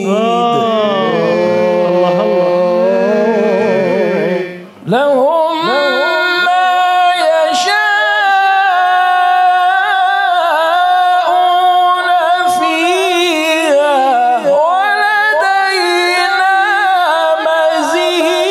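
A man reciting the Quran in melodic tajwid style, drawing out the words of the verse in long, ornamented held phrases. A short break for breath comes about four and a half seconds in, after which the voice comes back on a higher, sustained line.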